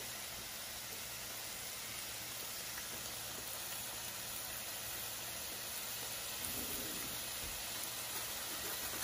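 Beef chunks sizzling steadily as they sauté in oil in a pot, an even frying hiss.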